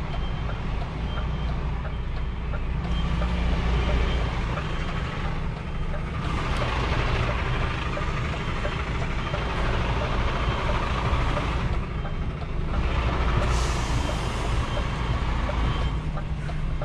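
A 20 m truck's diesel engine running steadily while reversing, with its reversing beeper sounding repeatedly. There is a short burst of hiss about three-quarters of the way through.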